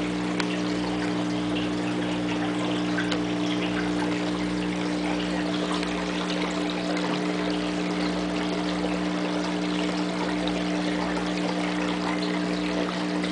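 Aquarium water trickling and splashing steadily, as from a filter's return flow, over a steady low hum.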